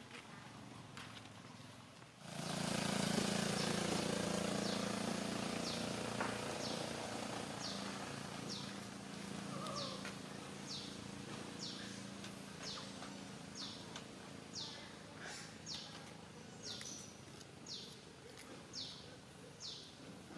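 Outdoor ambience: a steady low hum and hiss starts suddenly a couple of seconds in and slowly fades, while a short high downward chirp repeats about once a second.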